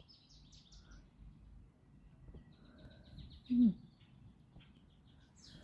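Wild songbirds chirping in quick runs of short, falling notes, once at the start and again a little past halfway. Just after the second run comes a brief, low falling vocal sound, the loudest moment.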